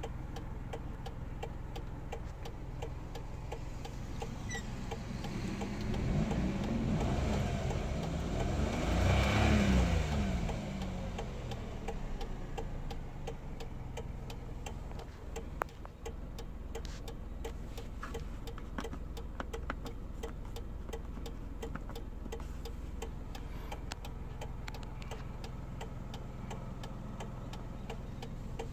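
Kia Morning's three-cylinder engine idling, heard inside the cabin. Around six seconds in it is revved once: the pitch rises, peaks near ten seconds and falls back to idle. Faint ticks run through it.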